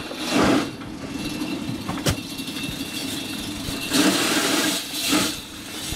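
An engine idling steadily under short rustling swells as woven plastic sacks are handed down into a boat's hold, near the start and again around four and five seconds in, with one sharp knock about two seconds in.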